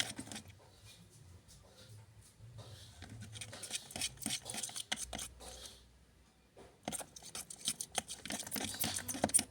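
Clear glue and slime activator being stirred in a small container as the mixture starts to clump: quick scratchy scraping and clicking in two bouts, with a short pause about six seconds in.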